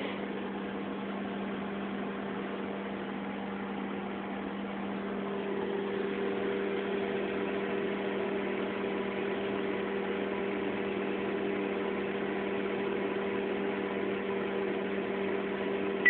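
Daewoo microwave oven running through a heating cycle: a steady hum over an even rushing noise, with a higher hum tone growing louder about five seconds in.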